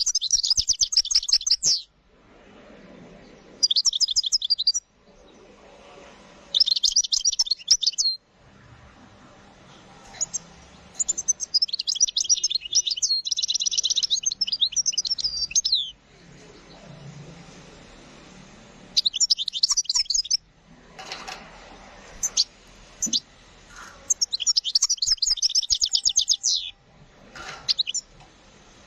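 European goldfinch singing: phrases of fast, high twittering notes broken by short pauses, with one long unbroken phrase near the middle.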